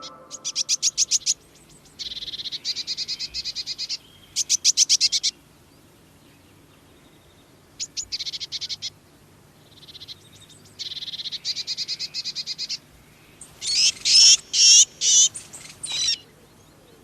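Blue tits calling: quick runs of high, thin notes in bouts of a second or two with short pauses between, and a louder, harsher run near the end.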